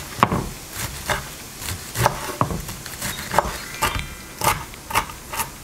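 Chef's knife chopping fresh spinach on a wooden cutting board: a run of sharp knocks of the blade striking the wood, about two a second.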